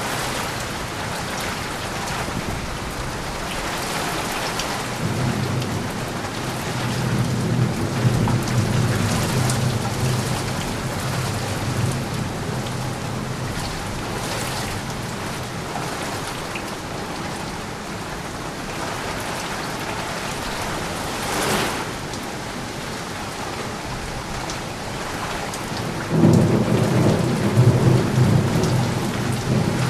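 Steady rain with rolling thunder. A long low rumble builds in the first half, a single sharp crack comes later, and a louder rumble breaks in abruptly near the end.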